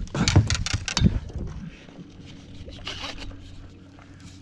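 Knocks and scraping of an aluminium landing net being picked up off a boat deck and handled, a quick cluster of clatters in the first second and a half, then a faint steady low hum.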